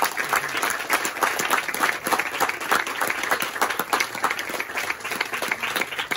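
A congregation applauding: many hands clapping together in a steady, dense patter.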